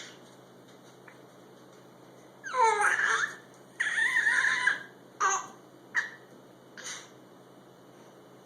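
A series of high-pitched, wavering vocal calls: two longer ones about two and a half and four seconds in, then three short calls about a second apart.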